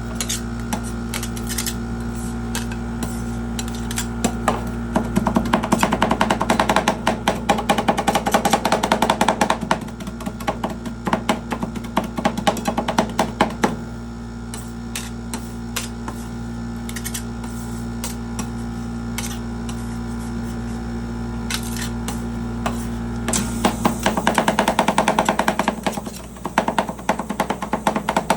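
Metal spatulas chopping and tapping quickly on an ice cream roll cold plate, in two fast bouts with scattered taps between, over a steady machine hum.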